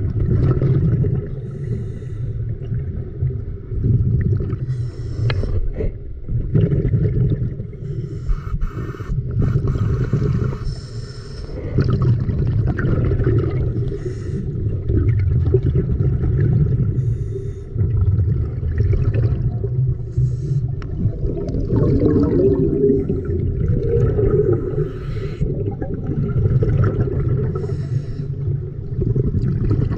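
A person's breathing and bubbles heard underwater, muffled and rumbling, swelling about every two to three seconds over a steady low water rumble.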